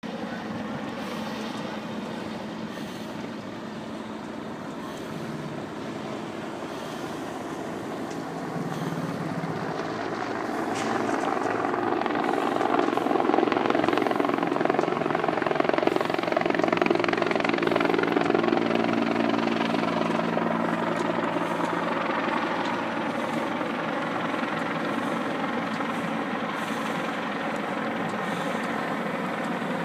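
Steady heavy engine drone with a low hum that builds over several seconds, is loudest a little past the middle, then eases off.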